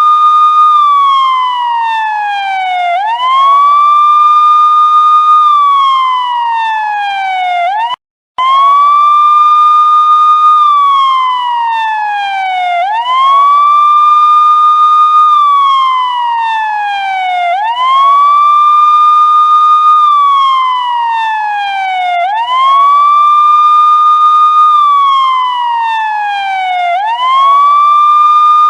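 Police car siren sounding a wail: each cycle climbs quickly, holds its high note for about two seconds, then slides slowly down, repeating about every four and a half seconds. It cuts out for a moment about eight seconds in.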